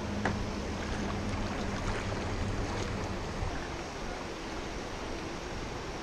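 Steady rushing noise of flowing water mixed with wind on the microphone, with a faint low hum under it that fades out about halfway through.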